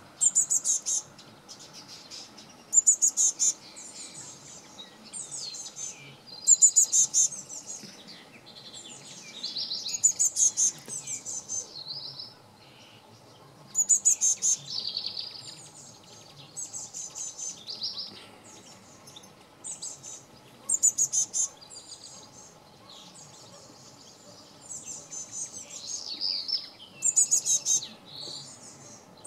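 Young blue tit fledgling giving bursts of rapid, high-pitched calls, a new burst every two or three seconds. These are the insistent begging calls of a fledgling.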